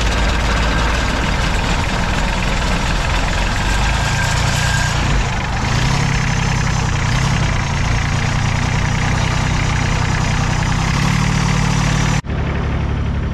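A fishing boat's two engines running under way, a loud steady drone. The engine note steps up slightly about five seconds in, and the sound breaks off for an instant near the end.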